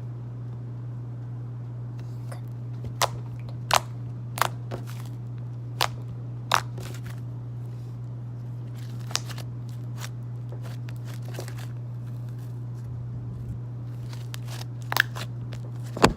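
Purple slime being pressed and stretched by hand, giving off irregular sharp pops and clicks as trapped air bursts, about a dozen over the stretch, over a steady low hum.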